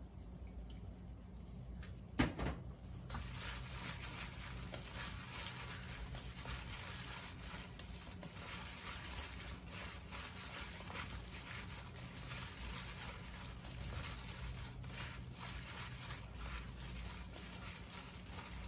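A single sharp knock, then water running steadily, as from a kitchen tap.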